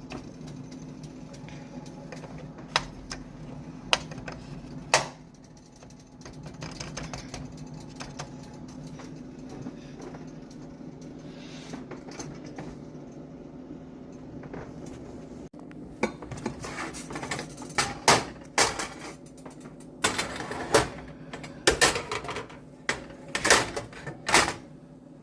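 Scattered sharp clicks and taps like dishes and utensils being handled, sparse at first and coming thick and fast in the second half, over a steady low hum.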